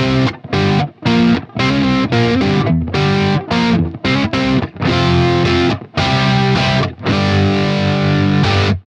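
Electric guitar (Fender Stratocaster) played through a BSM 71/73 treble booster into a crunchy Vox-style tube amp, giving a bright, slightly overdriven tone. It plays short choppy chord stabs, then a longer held chord that cuts off suddenly near the end.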